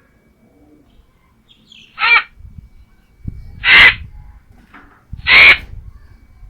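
A bird calling three times, loud harsh calls about a second and a half apart; the first is short, the next two longer.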